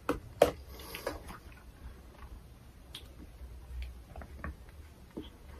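Small plastic cosmetic items and a hand mirror being handled: two sharp clicks about half a second apart at the start, then faint scattered taps and ticks.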